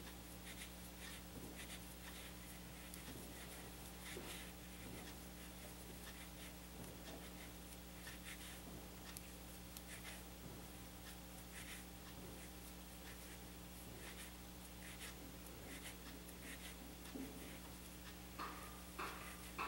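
Faint scratchy rustling and small irregular ticks of a metal crochet hook pulling yarn through loops while puff stitches are worked, over a low steady hum.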